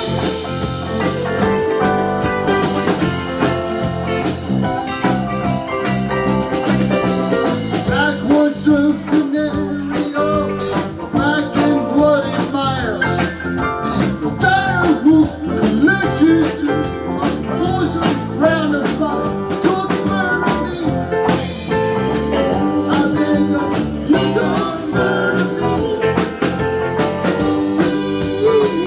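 Live rock band playing at full volume: electric guitars, bass guitar, keyboard and drum kit. Through the middle a lead line of bending, wavering melodic notes rides over the band.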